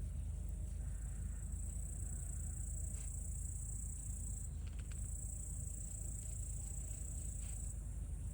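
Insects trilling steadily at a high pitch, breaking off briefly about four and a half seconds in and again near the end, over a low steady rumble, with a few faint clicks.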